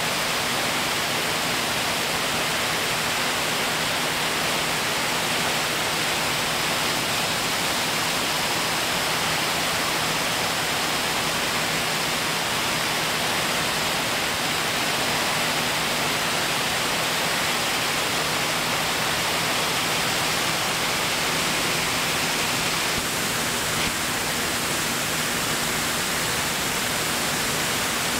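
Steady cabin noise of a light aircraft in flight: an even rush of engine and airflow with a low steady hum underneath, unchanging apart from a slight shift about 23 seconds in.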